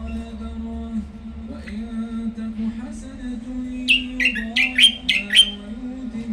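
A caged songbird giving a quick run of about six sharp, falling chirps a little past the middle, over a steady pitched drone in the background.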